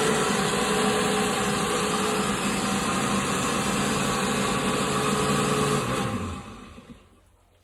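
Countertop blender motor running steadily, then switched off about six seconds in and winding down.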